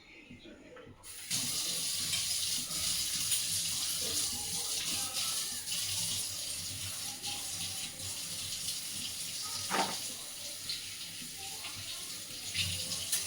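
Kitchen tap running steadily into a sink, starting about a second in, with a single knock about ten seconds in.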